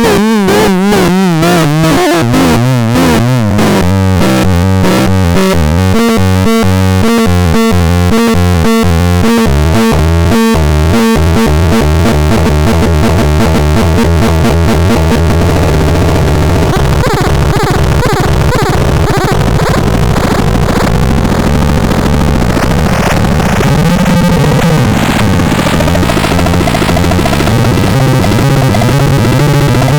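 Electronic synthesizer playing loudly. It opens with a wavering, wobbling tone, then breaks into rapid choppy stepped notes, and from about halfway thickens into a dense, gritty wash over a stepping low bass line.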